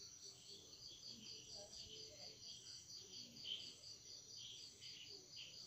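Faint insects chirping in the background: a rapid, even pulsing, about five pulses a second, over a steady high trill, with other irregular chirps mixed in.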